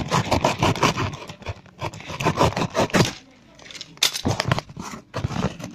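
Close-up rustling and scraping as a cardboard package and its contents are handled during an unboxing, in irregular spurts with a brief lull a little past the middle.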